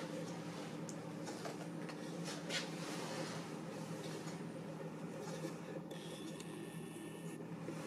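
Faint rubbing and handling noises over a steady low hum.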